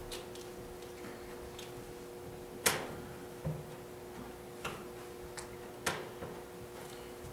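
A few sharp clicks and knocks from handling things on a wooden lectern, the loudest about two and a half seconds in, with smaller ones scattered after it. A steady low two-note hum runs beneath.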